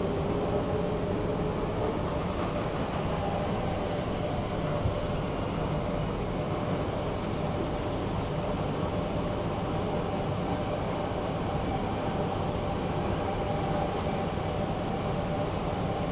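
Stockholm metro train running, heard from inside the carriage: a steady rumble of wheels on the track with a faint steady whine.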